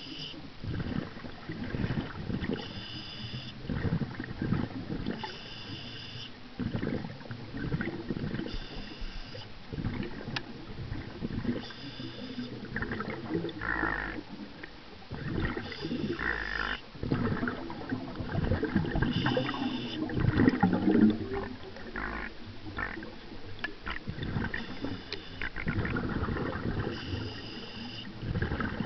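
Scuba diver breathing through a regulator underwater: a short hiss on each inhalation every three to four seconds, and rumbling, gurgling bursts of exhaled bubbles in between.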